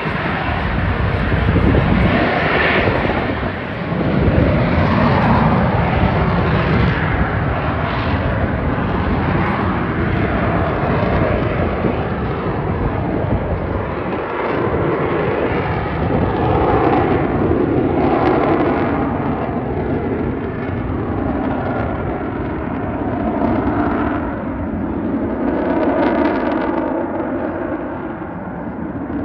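Loud military aircraft engine noise, heaviest and deepest in the first several seconds, then swelling and easing several times as the aircraft manoeuvre.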